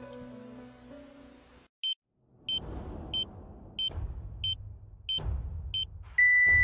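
Plucked background music ends about a second and a half in; then a heart-monitor sound effect: short high beeps about one and a half a second over low thuds, ending near the end in one loud unbroken tone, a flatline.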